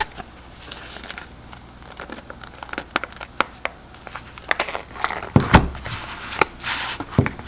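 Paper pattern crinkling and rustling as it is handled, with irregular light clicks and taps, a few louder ones past the middle.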